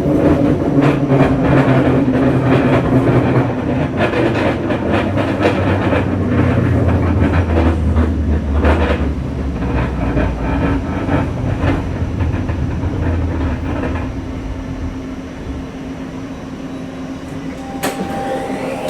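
Scarborough RT light-metro train, a linear-induction-motor car, running along the track: a steady rumble with rapid clicks of the wheels over the rail joints. The deep rumble drops away about fourteen seconds in and the ride grows quieter. A short steady tone sounds near the end.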